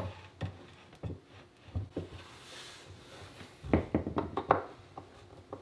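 Irregular light knocks and taps of a wooden plaque being handled and screwed against the wooden wall of a cabinet, with a closer run of taps about four seconds in.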